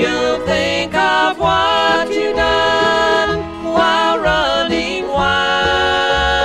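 Bluegrass band recording playing a song, with mandolin, guitar, banjo, fiddle and bass.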